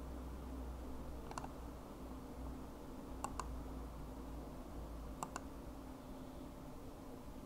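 Computer mouse clicks: one click about a second and a half in, then two quick pairs of clicks about two seconds apart, over a steady low hum.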